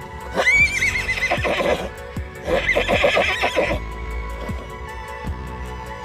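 A horse whinnying twice. The first is a high call that rises, wavers and trails off. The second is a shaking neigh a moment later. Background music with a steady beat plays under both.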